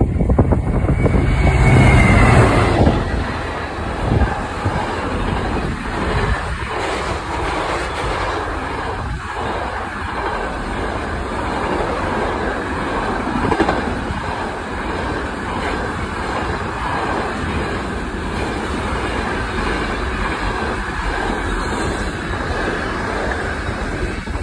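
A Class 66 diesel-electric freight locomotive passes close by, loudest and deepest in the first few seconds. A long train of container wagons follows, rolling and clattering steadily over the rail joints.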